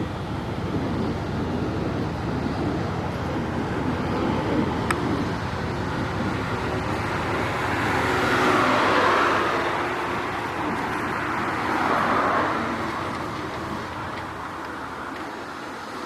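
City street traffic, with two louder swells as vehicles pass, about halfway through and again a few seconds later, then easing off.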